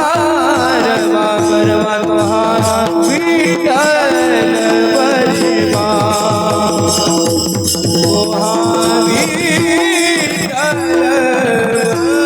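Kirtan devotional music: a voice sings long, wavering melismatic notes over a steady held drone note, while a mridang (pakhawaj) drum beats a quick, even rhythm.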